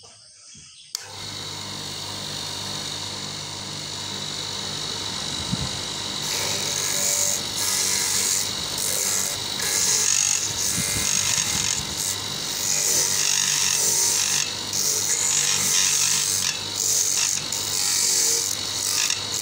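Electric cassava grater: a switch clicks about a second in and the motor starts, running with a steady hum. From about six seconds in, peeled cassava pressed against the spinning grater rasps in loud, irregular spells as it is shredded.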